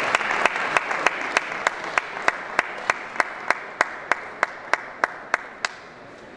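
Applause from a small crowd in a sports hall dying away. Over it runs a steady series of sharp clicks, about three a second, that stop near the end.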